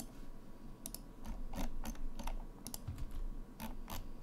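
Computer keyboard and mouse clicking: about ten short, irregularly spaced taps.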